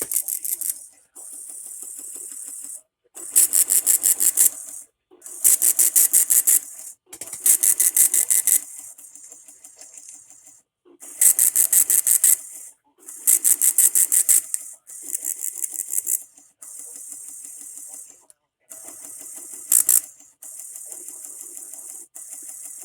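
NOAA Weather Radio SAME digital header bursts for a Required Weekly Test. Raspy data bursts of about a second and a half each come in groups of three, with a short final burst near the end, over a steady radio hiss.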